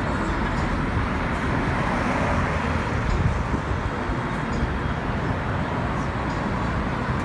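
Steady city street noise, mostly road traffic.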